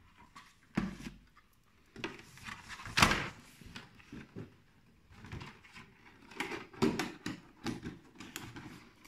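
A plastic pixel-block Pac-Man lamp and its box packaging being handled by hand, making irregular knocks, taps and rustles. The loudest knock comes about three seconds in, and a busier run of taps follows between about six and eight seconds.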